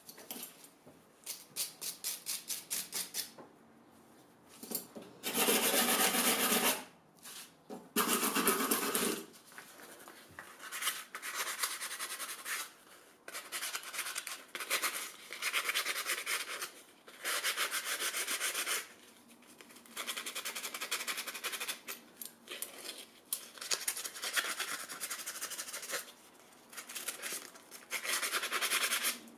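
A metal drawer-pull plate being sanded by hand with a strip of sandpaper: rapid back-and-forth rasping strokes in bursts, with short pauses between them.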